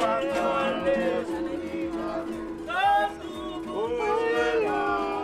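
Live welcome song by a small group of men singing, accompanied by acoustic guitars and a ukulele.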